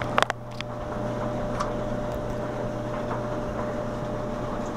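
A few sharp plastic clicks about a quarter second in as the timer knob is pulled off a GE Spacemaker dryer's control panel, over a steady low hum.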